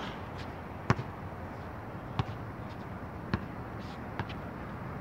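A basketball bouncing on a hard outdoor court: four separate, unevenly spaced thuds, the loudest about a second in.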